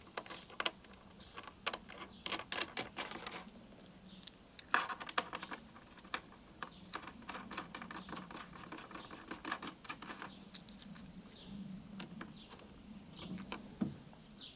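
Small metal battery terminal bolts clinking and rattling in the hand as they are fitted to a battery's terminal posts: a run of light metallic clicks.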